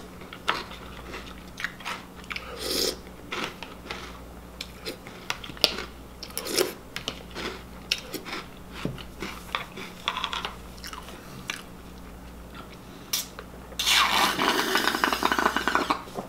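Crunchy Reese's Puffs cereal being chewed, with a metal spoon clicking against a plastic bowl in many short, sharp ticks. Near the end comes a louder, continuous slurping as the milk is drunk straight from the bowl.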